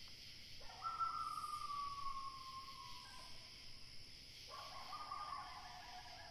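Two long, drawn-out calls from a wild animal in the woods at night, each sliding slowly down in pitch. The first starts just before a second in and lasts about two and a half seconds; the second starts about four and a half seconds in. A steady chorus of night insects runs underneath.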